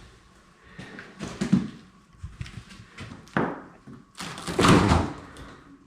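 Knocks and thuds of a refrigerator door being handled, with a longer, louder scraping rush about four to five seconds in as the door is pulled open.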